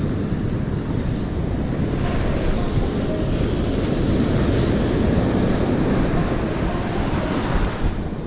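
Ocean surf breaking and washing on the shore, swelling loudest about halfway through, with wind buffeting the microphone.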